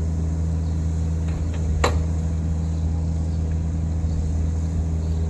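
Kobelco mini excavator's diesel engine running steadily as it grades dirt. A single sharp knock comes about two seconds in.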